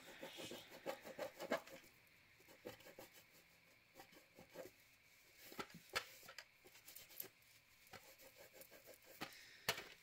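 Faint rubbing of a wet wipe on a small tin, scrubbing off leftover tape glue, with scattered light clicks and taps as the tin is handled.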